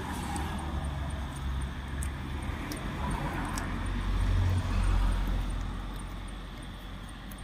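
Low rumble of a passing motor vehicle on the road, swelling to its loudest about halfway through and then fading away.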